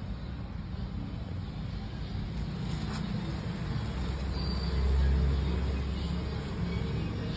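Low, steady rumbling background noise that swells briefly about five seconds in.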